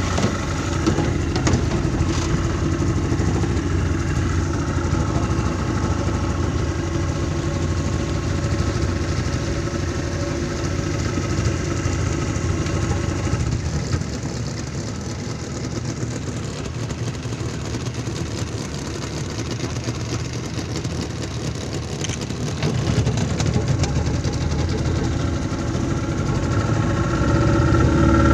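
Speedboat engine running at speed, with wind and water rushing past the hull. The engine eases off about halfway through and picks up again near the end.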